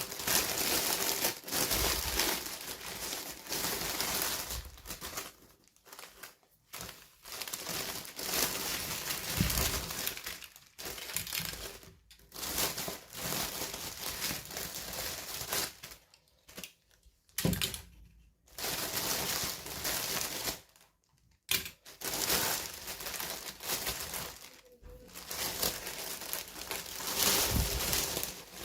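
Toy packaging being crinkled and torn open by hand during an unboxing, in irregular bursts with brief pauses between.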